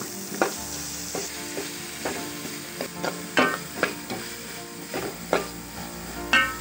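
Chopped onions and curry leaves sizzling in coconut oil in a pan, while a spatula stirs them and scrapes and knocks against the pan about nine times.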